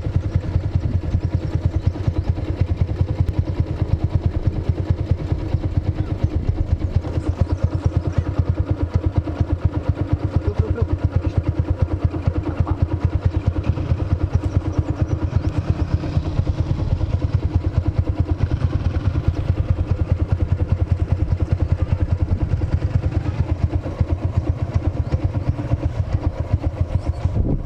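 Suzuki Shogun SP 125 single-cylinder four-stroke engine, bored up to about 141.5 cc with a 57 mm Suzuki Thunder 125 piston, running steadily with a rapid, even beat of exhaust pulses.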